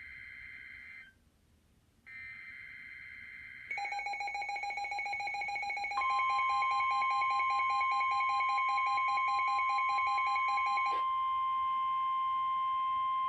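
Emergency Alert System tones: the last two of three short warbling digital header bursts, then a fast-pulsing electronic alert tone. A long steady single-pitch alert tone, the weather radio warning alarm, joins about six seconds in and carries on after the pulsing stops about eleven seconds in.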